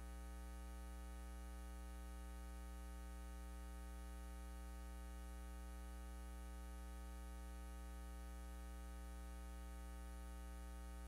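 Steady electrical mains hum: a low buzz with a ladder of evenly spaced overtones, unchanging throughout.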